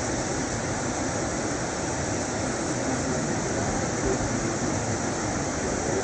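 Waterfall's steady rush of falling water, an even hiss with no changes.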